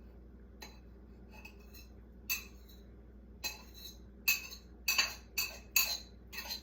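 A metal utensil clinking against a dish about nine times, a second or so apart at first, then faster near the end. It is the sound of the dog's microwaved egg being broken up in its dish.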